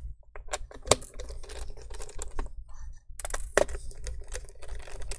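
Irregular small clicks and taps of a screwdriver working out the screws that hold the plastic speaker module in a Lenovo ThinkPad T460s chassis, with the speaker handled as it comes loose. There is a short pause a little past halfway.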